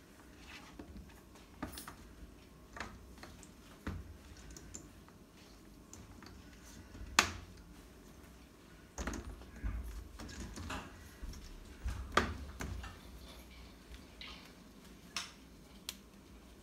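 Plastic panels and corner connectors of a cube organiser clicking and knocking as they are handled and pushed together: an irregular scatter of sharp clicks, the loudest about seven seconds in and about twelve seconds in, with a busier run of clicks and light thumps between them.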